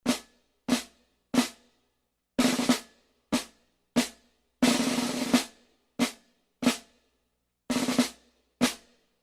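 Snare drum played solo: single strokes alternating with three short rolls of about half a second to a second each, each stroke and roll cut off cleanly with silence between them.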